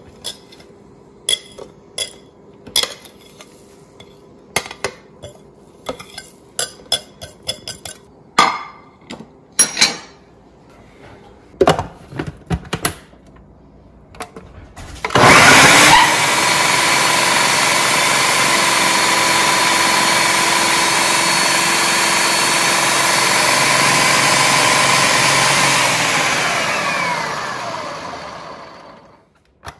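A knife tapping and scraping spices off a plate into a plastic food-processor bowl, a string of separate clicks and taps. About halfway through, the electric food processor (chopper) starts with a jolt and runs steadily with a whine, chopping coriander, chillies and spices, then winds down with falling pitch near the end.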